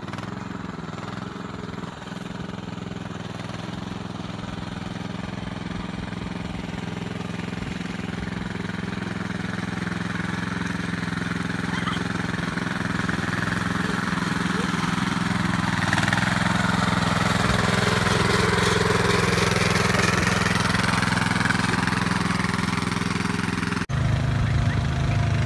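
Small engine of a two-wheel walking tractor pulling a cart, running steadily and growing gradually louder as it approaches. Near the end the engine sound jumps abruptly louder and closer.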